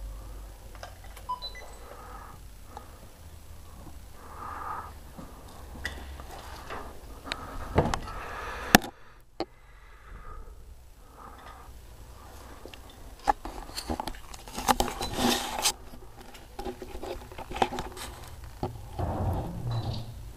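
Handheld camera handling noise in a quiet, reverberant room: scattered clicks and rustles over a low rumble, with a louder stretch of rustling about fourteen to sixteen seconds in.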